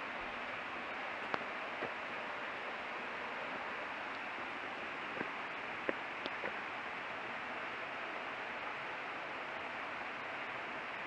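Steady rushing hiss with a few faint sharp ticks, around a second and a half in and again around five to six and a half seconds in.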